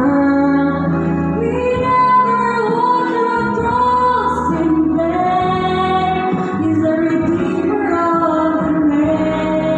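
A woman singing a slow Christian ballad over backing music, holding long notes.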